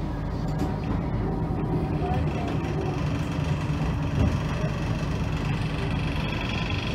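Steady low rumble and hum of a tram running along the street, heard from inside the passenger saloon.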